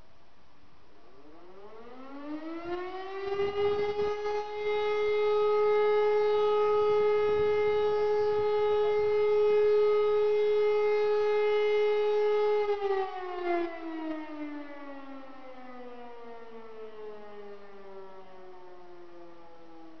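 E57 electromechanical motor sirens sound one blast of the German fire-alarm signal ('Feueralarm') in a siren test. They spin up to a steady howl over about two seconds and hold it for about nine seconds. Then they wind down with slowly falling pitch as the rotors coast.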